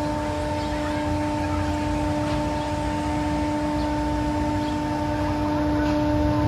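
Helicopter running in flight: a steady drone and rush of noise with a constant hum over it.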